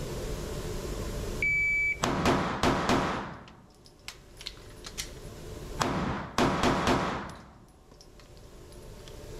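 A shot timer's start beep, a steady high tone about half a second long, then four quick pistol shots, a pause of about two and a half seconds with a few small clicks of an emergency magazine reload, and four more quick pistol shots, echoing in an indoor range.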